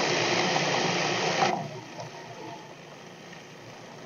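Waring food processor switched on, its motor running and blade chopping a thick mix of kidney beans and brownie ingredients. Loud at first, it drops to a quieter steady run after about a second and a half.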